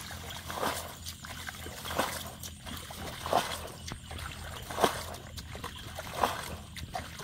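Muddy water being bailed out of a shallow pool with a bucket: five scoop-and-throw splashes, one about every second and a half.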